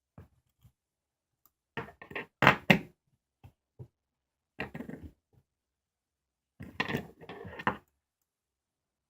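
Three short bursts of knocking and rustling, about 2, 5 and 7 seconds in, like small hard objects being handled and set down.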